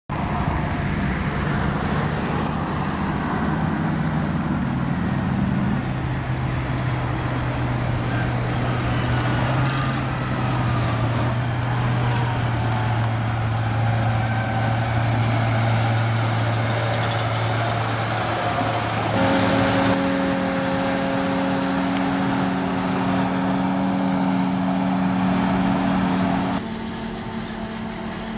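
Heavy diesel engine of a John Deere 7450i self-propelled forage harvester running at steady revs on the road, a constant engine hum that settles slightly lower about five seconds in. About 19 s in the sound switches to a steadier, higher machine hum with several tones, and it turns quieter about two seconds before the end.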